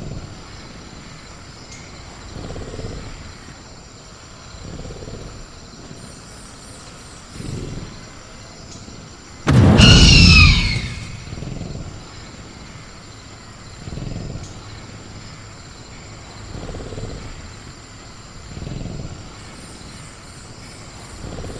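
Sound-designed velociraptor calling: soft low growls every two to three seconds, and about ten seconds in one loud screeching roar that falls in pitch. A faint steady chirring of crickets runs underneath.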